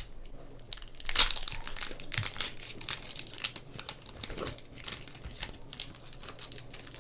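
Crinkling and tearing of a foil trading-card pack wrapper as it is opened by hand, busiest and loudest from about a second to three seconds in, then softer.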